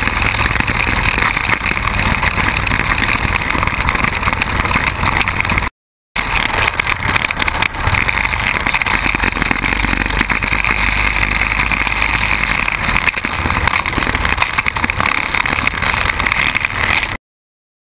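Quad bike running over rough ground, heard close up from a camera mounted on the bike: engine and tyre noise. It drops out suddenly about six seconds in, then returns, and drops out again near the end.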